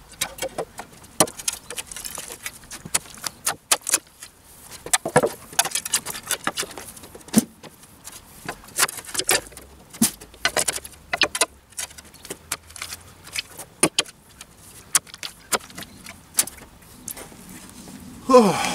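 Irregular metallic clinks, knocks and rattles of garden tools being handled: shovels and a steel wheelbarrow picked up, moved and set down.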